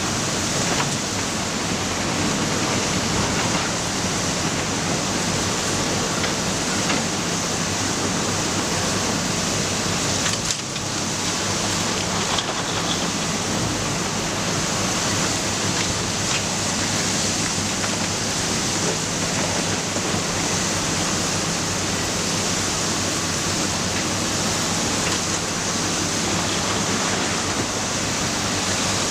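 Matador ME315 excavator working, its engine running steadily under a dense hiss with a low hum, briefly easing about ten seconds in.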